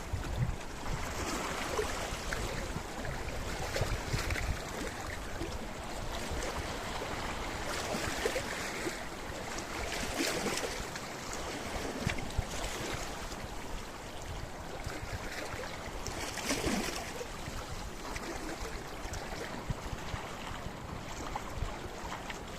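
Sea waves washing in over a rocky shore, surging every few seconds in a steady hiss of moving water.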